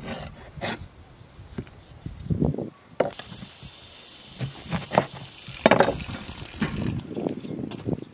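Kitchen knife knocking on a wooden cutting board in scattered strokes as onion is chopped and a lemon is cut in half, with some handling rustle.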